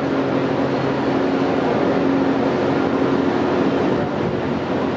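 Steady hum with a constant low drone, unchanging throughout, like a running machine.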